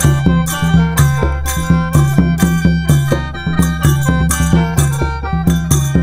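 Lao–Isan mor lam band music: a khaen, the bamboo mouth organ, plays its melody over a steady drone while a hand drum keeps an even, driving beat.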